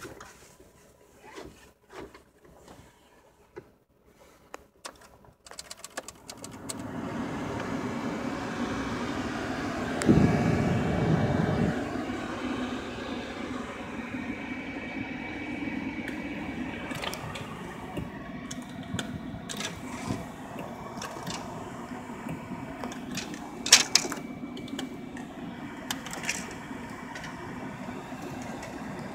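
Mercedes C280's climate control blower switching on about six seconds in and then running steadily, with a louder low surge around ten seconds. Several sharp clicks come over it later.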